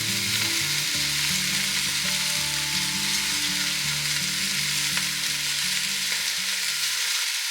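Chopped celery, carrots and onions sizzling in hot avocado oil in a Dutch oven with browning chicken drumsticks, a steady frying hiss.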